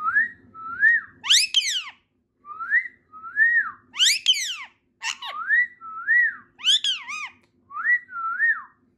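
Indian ringneck parakeet calling: a run of short whistles that rise and fall, broken by four or five harsh, downward-sweeping screeches.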